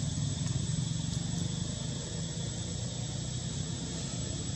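A steady low rumble of a running motor with a fine even pulse, and a thin steady high whine above it.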